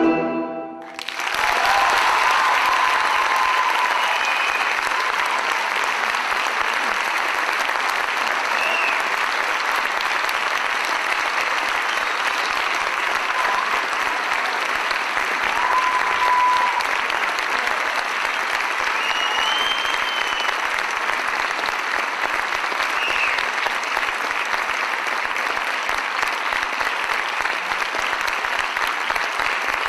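Recorded orchestral music ends on a held chord, and about a second in an audience breaks into steady, loud applause, with a few brief cries heard over the clapping.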